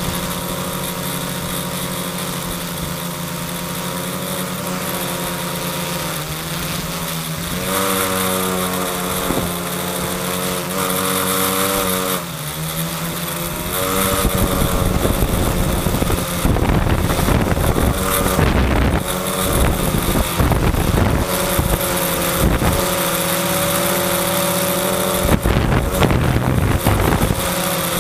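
Electric motors and propellers of a quadcopter humming steadily, heard from a camera mounted on the craft, the pitch bending up and down twice as the motors change speed in the first half. From about halfway in, irregular low buffeting on the microphone comes and goes over the motor hum.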